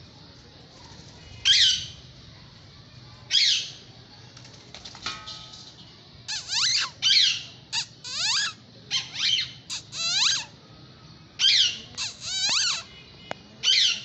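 Pet parakeets giving shrill screeching calls, each sliding down in pitch. Single calls come about a second and a half and three and a half seconds in, then a quick run of calls from about six to ten and a half seconds, and a few more near the end.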